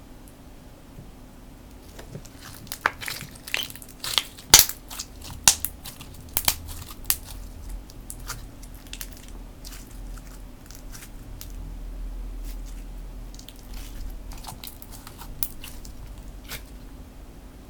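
Slime being squeezed and stretched by hand, giving a quick run of sharp crackles and pops for a few seconds, then fewer, softer pops.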